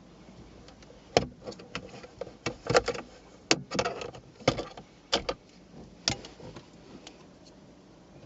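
Sharp clicks, knocks and short scrapes from a car's interior plastic backing panel being worked loose from its clips, irregular and loudest in the middle.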